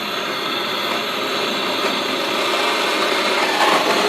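Soldering torch flame burning with a steady hiss while heating the soldering brick and metal, getting a little louder near the end.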